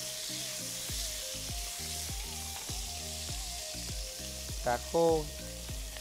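Minced pork and fried garlic sizzling in hot oil in a frying pan while being stir-fried with a wooden spoon, a steady hiss. Background music with a steady low beat runs underneath, and a brief voice cuts in about five seconds in.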